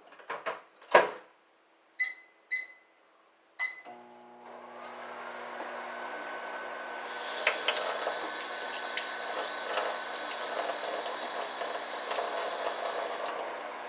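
Microwave oven being started: a knock as the door shuts, three keypad beeps, then the oven running with a steady hum, joined by a high whine a few seconds later that stops near the end.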